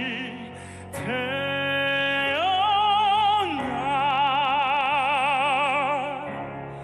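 A male singer in operatic, classical-crossover style sings long held notes over soft accompaniment. About a second in, a note steps up to a higher one, then gives way to a long note with wide vibrato that fades near the end.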